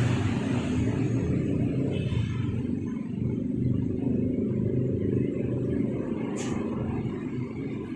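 Steady low mechanical rumble, with a light click about six and a half seconds in.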